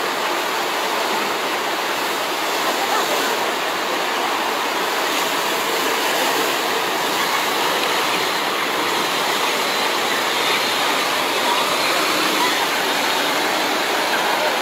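Steady, loud rushing noise with no break and no clear engine note.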